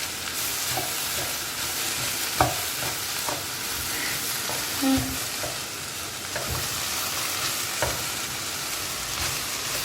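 Chopped vegetables sizzling in hot oil in a pan while being stirred, with a steady hiss and occasional clicks and knocks of the spoon against the pan.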